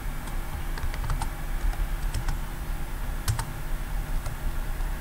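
Typing on a computer keyboard: a scattered handful of key clicks at an uneven pace, over a steady low hum.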